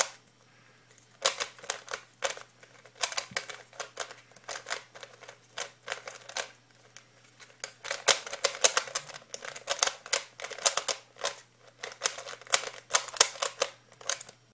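Rubik's cube being turned fast during a speed solve: rapid runs of plastic clicks and clacks, with brief pauses near the start and again about halfway through.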